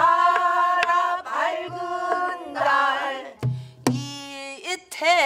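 Voices singing a line of a Korean Namdo folk song on long held notes, over several low strokes of a buk barrel drum. Near the end a voice swoops and shakes through a wide vibrato.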